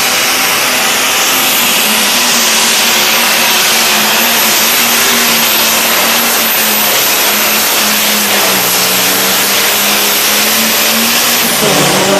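Turbocharged diesel engine of a John Deere Pro Stock pulling tractor running hard at full throttle while dragging a weight-transfer sled, loud and continuous. The engine note drops slightly about eight seconds in as it works against the load.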